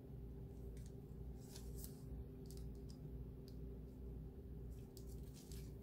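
Faint, scattered scratchy ticks and rustles from hands working a toothpick into soft fondant over wax paper, over a low steady hum.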